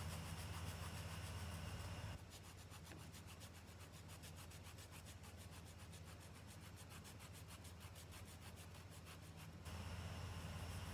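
A hand-held bi-metal hacksaw blade sawing back and forth through a mothball, making a quick, even run of soft scraping rubs. A steady low hum drops away about two seconds in and comes back near the end.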